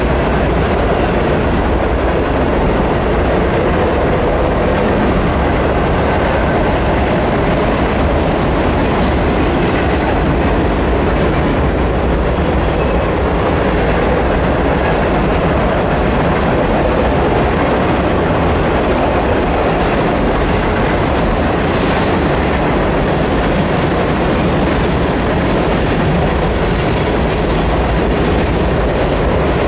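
Freight cars of a mixed freight train rolling steadily across a steel girder bridge: a continuous loud rumble of wheels on rail with clickety-clack. Thin, high wheel squeals come and go.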